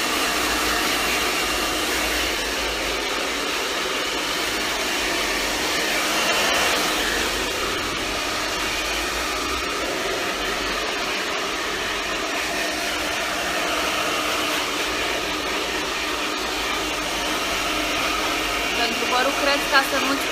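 Handheld hair dryer running steadily on wet hair.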